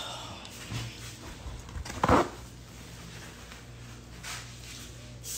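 A single loud thump about two seconds in, with fainter handling sounds and a steady low hum beneath.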